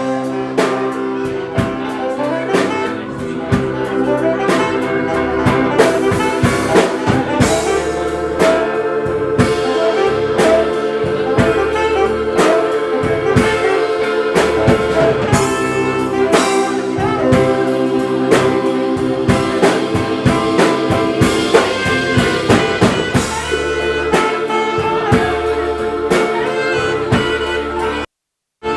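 A band playing with horns over a drum kit, with held horn notes and steady drum hits. The sound cuts out completely for under a second near the end.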